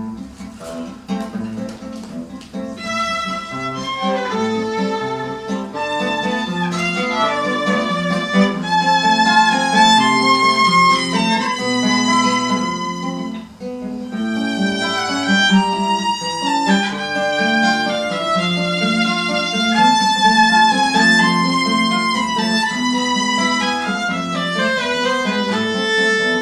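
Instrumental introduction to a song: a violin melody over acoustic guitar accompaniment, with a brief dip about halfway through.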